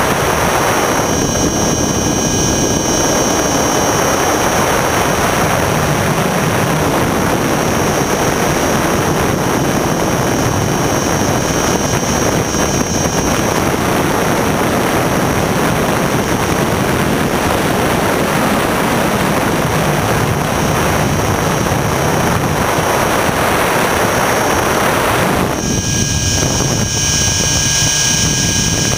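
Align T-Rex 600 ESP electric RC helicopter in flight, heard through the GoPro mounted on its frame: a loud, steady rush of rotor and wind with a high motor whine. About 25 seconds in, the rush thins and the whine comes up stronger as the helicopter manoeuvres.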